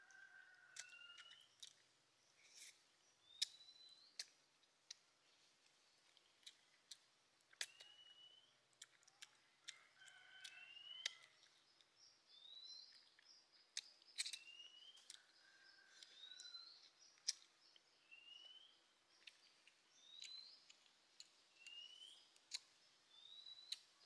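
Faint birdsong: a short rising chirp repeated every second or two, with a lower falling call twice. Sharp clicks are scattered throughout and are the loudest sounds.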